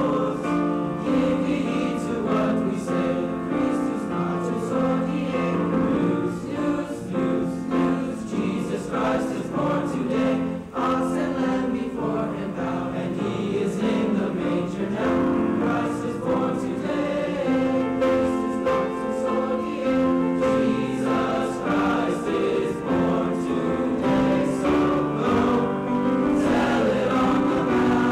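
A junior high school choir singing a song in sustained held notes, with no break.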